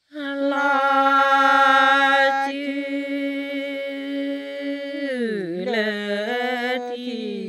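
A single voice chanting a Karen tha, a traditional sung poem, with no accompaniment: one long held note for about five seconds, then the pitch drops and wavers into shorter held notes.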